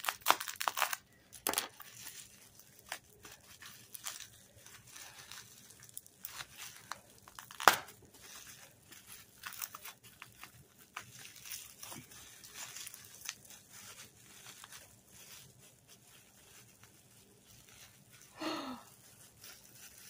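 Bubble wrap crinkling and rustling as it is handled and pulled open by hand, with scattered crackles and one sharp crack about halfway through.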